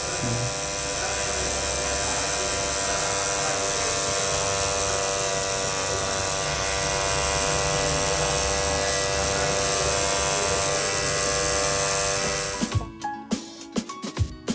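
Electric tattoo machine buzzing steadily as the needle lines a tattoo into skin, a continuous even buzz with a ringing edge. It cuts off abruptly about 13 s in and gives way to percussive music.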